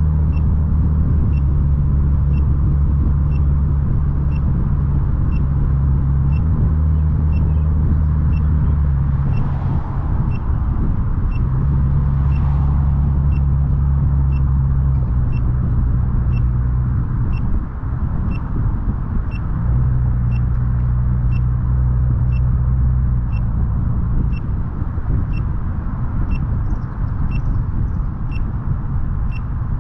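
A car driving, its engine and road rumble steady, with a steady engine tone that drops out a few times. Over it, a short high beep repeats about once a second throughout.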